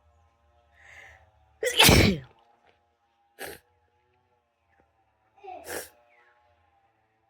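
A person sneezes loudly once after a short intake of breath, the sneeze falling in pitch as it ends. A brief sniff-like burst and a second, softer burst of breath follow.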